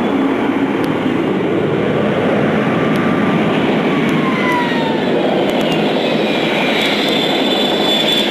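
Boeing 777 jet engines running loud during a rejected takeoff, a steady roar with turbine whines that fall in pitch through the middle and a higher whine toward the end.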